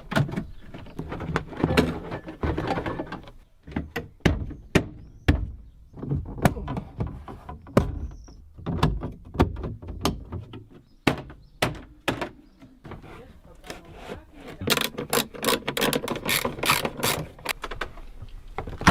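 Plastic trim panels being fitted into a car's trunk: a run of knocks, thunks and sharp clicks as the panels are pressed and clipped into place, with a fast string of clicks over the last few seconds.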